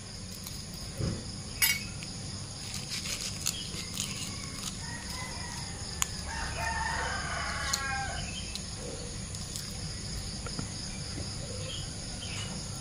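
A rooster crows once, a drawn-out call of about three seconds starting some five seconds in, over steady cricket chirring. A few sharp clicks come from a metal spoon tapping a quail eggshell against a stone mortar.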